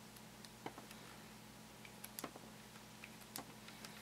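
Faint, sparse clicks of small plastic toy scissors snipping soft Play-Doh: one click, then a quick run of three about two seconds in, then another near the end.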